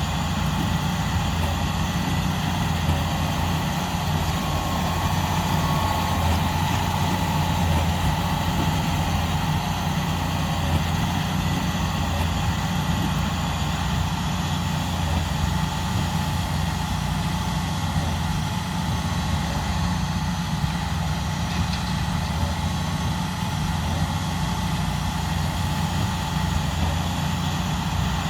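Diesel engine of a large John Deere track tractor running steadily at a constant speed, as it pulls a big baler.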